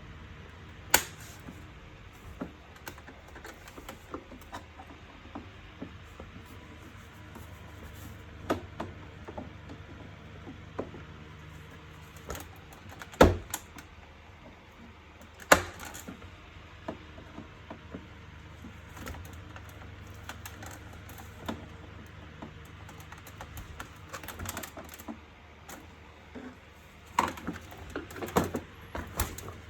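Scattered clicks and knocks of plastic vacuum-cleaner parts being handled and fitted together by hand, over a steady low background hum. The sharpest knocks come about a second in, twice near the middle, and in a quick cluster near the end.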